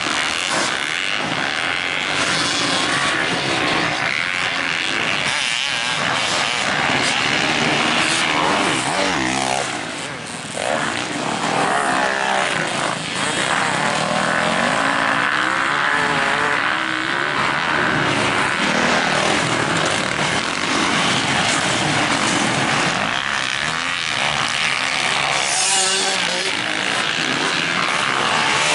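Motocross bike's single-cylinder four-stroke engine, a 2021 Honda CRF450R, being ridden hard with the throttle opening and closing so the pitch rises and falls repeatedly over a rush of noise. The engine backs off briefly about ten seconds in before pulling again.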